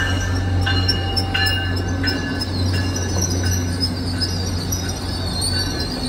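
MBTA commuter rail coaches rolling past at close range: a steady low hum and rolling noise, with high, wavering squeals from the wheels coming and going throughout.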